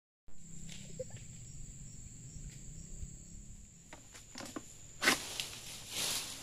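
A long-poled harvesting sickle cutting an oil palm frond: a few light knocks, then a sharp loud crack about five seconds in, followed by the rustle of the frond coming down about a second later. A steady high-pitched whine runs underneath until the cut.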